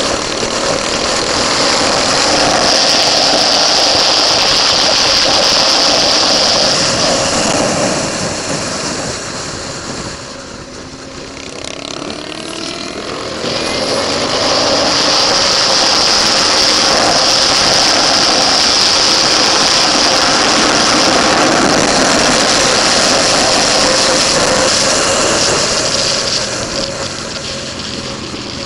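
Motorcycle ridden hard on a race track, heard from a camera mounted on the bike: a loud, steady rush of engine and wind at speed. About ten seconds in it eases off and the engine note slides down and up, then it is loud again for most of the rest, easing once more near the end.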